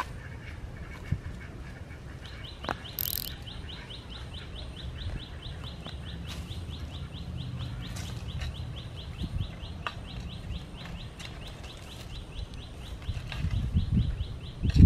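A bird calling with a high chirp repeated evenly about four times a second, starting about two seconds in. Near the end come dull thuds of a hoe blade working loose soil.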